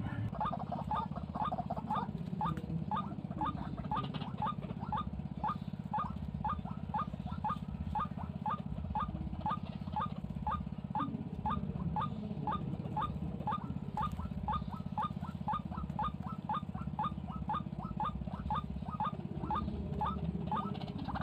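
White-breasted waterhen calling: one short note repeated steadily, about three a second, over a steady low hum.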